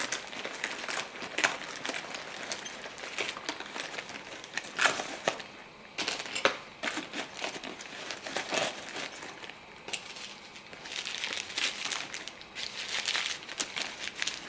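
Toiletry bottles and packaging being handled and packed into a toiletry bag: irregular rustling and crinkling with scattered light clicks and knocks.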